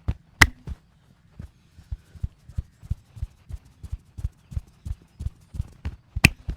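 Percussive massage tapping on a body: a steady run of soft, dull thumps, about three a second. Two sharp, loud clicks stand out, one shortly after the start and one near the end.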